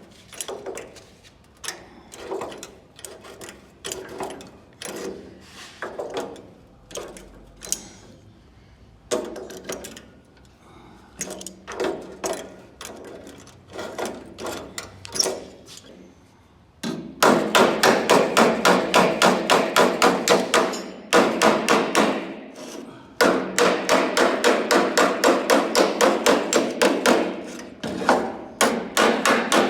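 Body hammer striking sheet-steel bodywork in panel beating: single ringing blows at first, then from about halfway a fast, steady run of metallic blows, about three or four a second, broken by a few short pauses.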